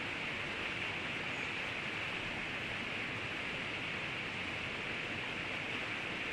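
Steady, even rush of flowing river water, with no change in level.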